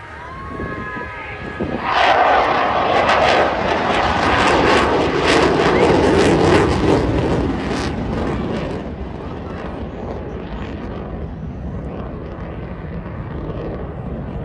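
A Eurofighter Typhoon's twin EJ200 jet engines roaring past. The sound rises sharply about two seconds in, crackles loudly for several seconds, then fades to a lower rumble.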